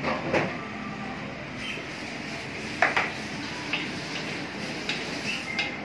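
Liquid poured from a plastic tub into a hot steel wok of shrimp, with a short sizzling rush at the start, then a wooden spatula knocking and scraping in the wok. The loudest sound is a single sharp knock about three seconds in, followed by several lighter clicks, all over a steady rushing kitchen noise.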